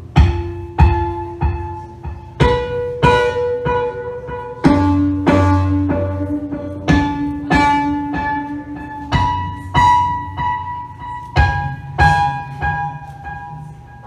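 Live experimental electronic music: groups of three sharply struck, pitched notes that ring and fade, repeating about every two seconds over a sustained low tone. The notes stop near the end, leaving only the low tone.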